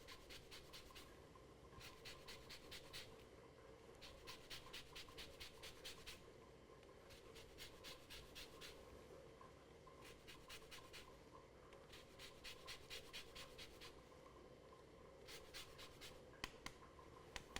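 Lemon rubbed over a zester: faint runs of quick scraping strokes, about seven runs of a second or two each with short pauses between.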